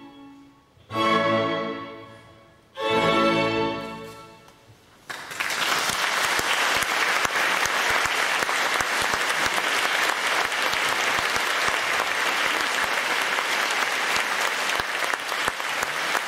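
A clarinet and string ensemble (two violins, viola, cello, double bass) plays two short final chords about two seconds apart, each dying away. About five seconds in, the audience bursts into steady applause.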